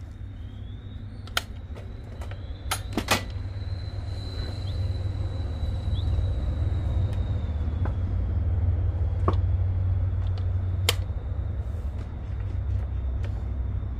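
Wooden knocks and clunks as a large Western red cedar blank is lifted, flipped upside down and set back into a jaw horse clamp: a few sharp knocks in the first few seconds and two more later on, over a steady low rumble.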